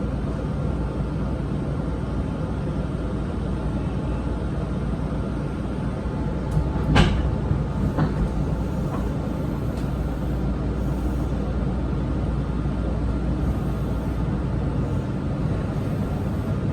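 Steady low rumble of a Meitetsu limited express train running, heard from inside the passenger car, with two sharp knocks near the middle.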